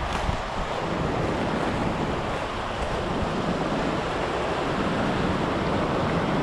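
Rushing water of a fast-flowing mountain creek: a steady, even rush with no breaks.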